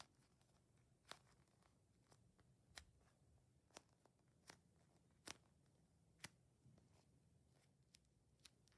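Near silence with about seven faint, sharp clicks scattered through it: hands handling squishy foam toys.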